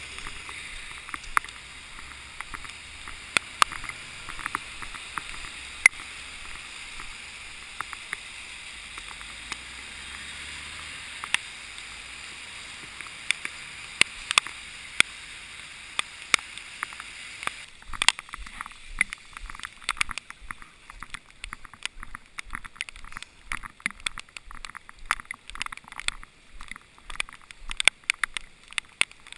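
A steady hiss of rain and handling noise from a hand-held camera carried while walking, with scattered clicks. From about eighteen seconds in, irregular taps and clicks come much thicker, as drops and handling knock against the camera.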